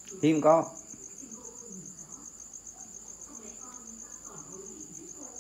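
A cricket trilling continuously: one high, rapidly pulsing note that holds steady, with faint voices in the background.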